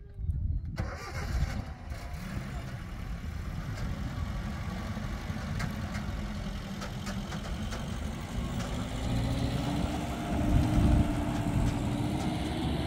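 A pickup truck's engine running as it drives off along a dirt track, its note rising slowly through the second half as it picks up speed.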